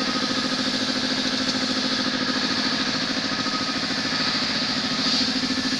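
Mitsubishi S16U 16-cylinder diesel engine running steadily at idle after a general overhaul, a fast, even pulsing hum with a strong low tone.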